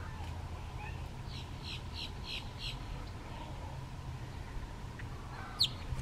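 Boat-tailed grackle calling: a quick run of five evenly spaced, high, harsh notes a little over a second in, then one sharp, high, down-slurred note near the end, over a steady low rumble.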